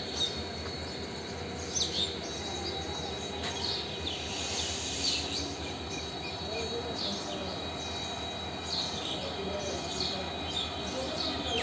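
Birds chirping in short, falling high notes, repeated every second or so, over a steady background hum and a thin, steady high whine.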